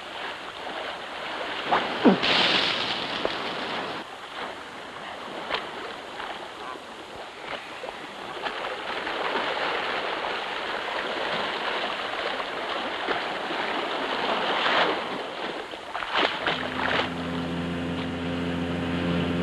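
Surf washing on a shore, with a few sharper splashes; near the end a steady engine hum comes in.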